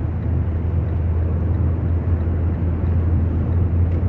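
Steady drone of a Fiat Linea driving on a wet highway, heard inside the cabin: a constant low engine and road hum with tyre noise from the wet asphalt.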